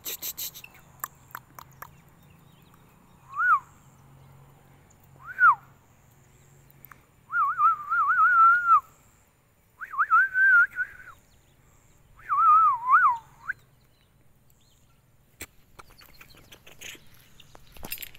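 Clear, high whistling: two short rising-and-falling notes, then three longer warbling whistled phrases, each about a second or more, with pauses between.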